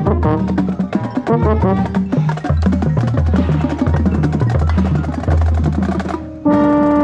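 Marching band playing a quick, detached passage with busy percussion and drums over a stepping bass line; just after six seconds in it breaks off briefly, then the band hits a loud held chord.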